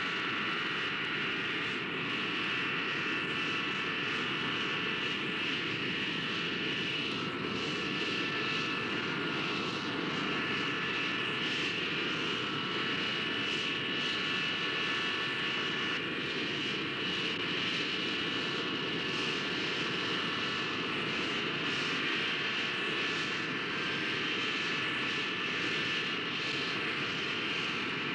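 Jet airliner's engines idling: a steady rushing with a high whine held at several pitches.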